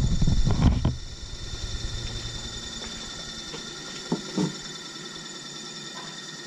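Harbor Freight 12-inch disc sander's electric motor running. Its sound drops about a second in and then fades lower, under a steady faint whine. Two light knocks come a little after four seconds in.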